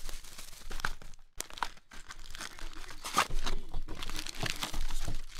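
Hands tearing open a cardboard box of 2020 Panini Mosaic football card packs and handling the foil-wrapped packs. It is an irregular run of crinkling and tearing, busier and louder in the second half.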